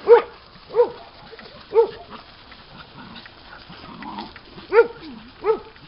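A dog barking: three short barks about a second apart, a pause of about three seconds, then two more barks.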